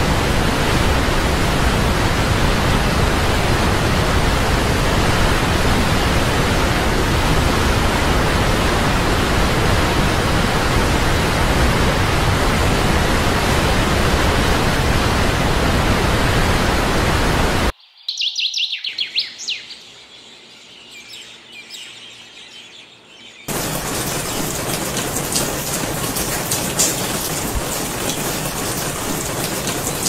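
A waterfall's steady rush of falling water, cut off suddenly about two-thirds of the way through. A few bird chirps follow over quieter surroundings, then a rush of splashing water returns with many small ticks in it.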